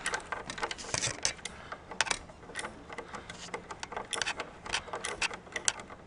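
Socket wrench backing out a screw from a garage door opener's drive shaft assembly: a run of quick, uneven metal clicks and ticks, several each second.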